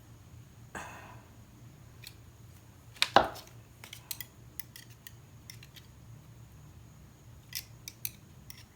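Solid 14-gauge wire being bent and worked with a wire stripper/cutter tool: scattered small metallic clicks and a scrape, with one sharp clack about three seconds in.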